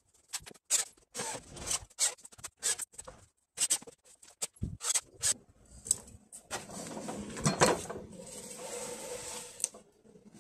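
Timber planks knocking and clattering on a saw bench as a glued-up board panel is handled: a run of sharp wooden knocks, then a longer stretch of continuous scraping noise in the second half.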